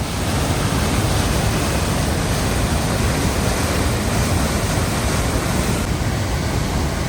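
Steady roar of fast water rushing through a rock canyon.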